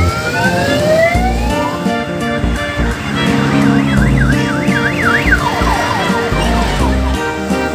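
Loud electronic music with a low beat, overlaid by siren-like sound effects: a long rising whoop, then a fast up-and-down warble a little past the middle, then falling sweeps.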